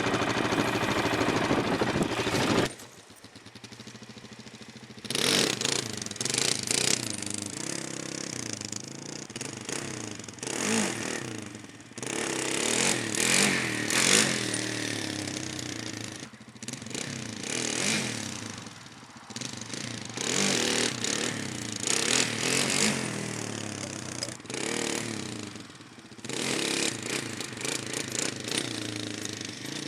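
Suzuki LTZ 400 quad's single-cylinder four-stroke engine being ridden hard, with the throttle blipped in repeated bursts of revving that rise and fall every couple of seconds. The engine note drops off suddenly about three seconds in.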